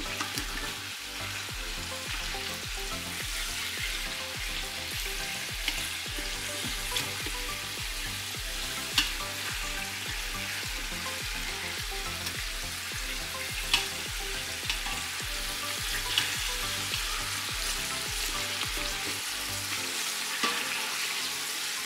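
Chicken thighs sizzling in hot oil in a stainless steel Instant Pot inner pot on the sauté setting, a steady frying hiss. Now and then metal tongs click sharply against the pot as the pieces are turned over.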